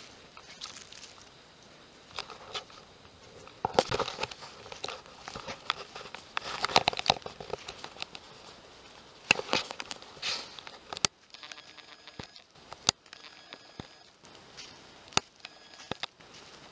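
Footsteps crunching and crackling through dry fallen leaves and twigs, with irregular sharp snaps; busier in the first part, then sparser single snaps.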